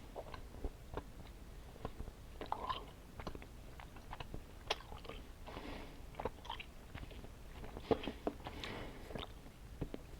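Close-up mouth sounds of someone chewing chewy candy: irregular wet clicks and smacks, with a few brief sticky squelches.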